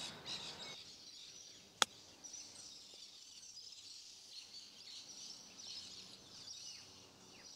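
A golf club strikes a ball once, a single sharp click about two seconds in, over faint bird chirping.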